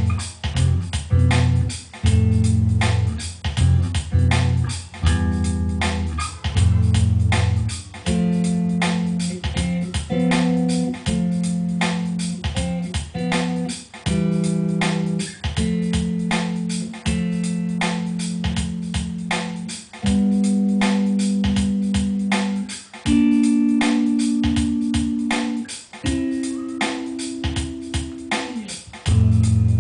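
Bass guitar playing a melodic solo over a drum machine beat, with a steady pulse of about four hits a second. Near the end a held higher note slides down in pitch.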